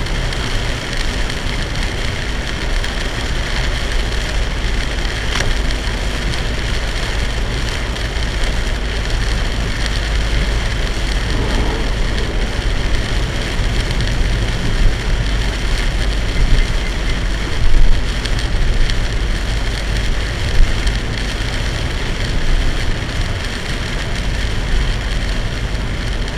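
Torrential rain drumming on a moving car, mixed with tyre and road noise, heard from inside the cabin. It is steady, with a few brief louder splashes past the middle.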